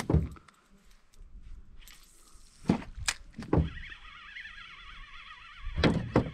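Several dull thumps and knocks: one at the start, three in quick succession about three seconds in, and a heavier double knock near the end. A faint wavering high tone comes in behind them halfway through.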